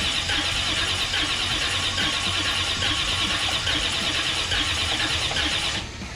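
Starter motor cranking a VC Commodore's engine for about six seconds, with a steady high whine and a faint repeating pulse, then stopping suddenly near the end. The engine turns over but does not fire.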